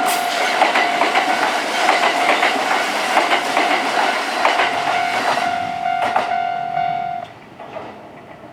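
Japanese level-crossing warning bell ringing with a steady tone while a Kintetsu train runs over the crossing, its wheels clacking over the rail joints. The bell stops abruptly about seven seconds in, and the train noise fades to a quieter level.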